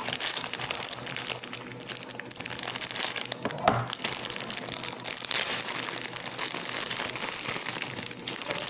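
Plastic bag of elbow macaroni crinkling and crackling as hands grip and pull at its top to open it.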